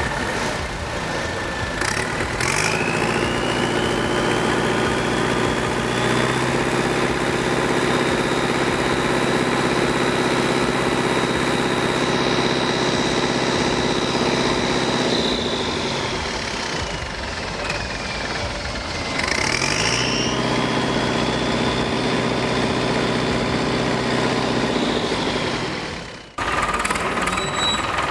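Ford 6610 four-cylinder diesel tractor engine fitted with an oversized turbocharger, held at high revs with a loud turbo whistle that rises, holds, sags briefly and rises again. The sound cuts off suddenly near the end and comes back.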